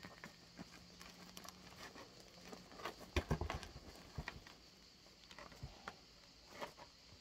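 Faint crackling and crunching of crusty baked bread as round loaves are broken open and pulled apart by hand. The loaves are being split in half to make friselle. The sound comes in scattered bursts, thickest about three seconds in.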